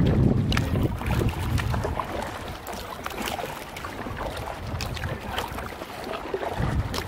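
Canoe paddle splashing through the water, with many small splashes and drips as water falls from the blade.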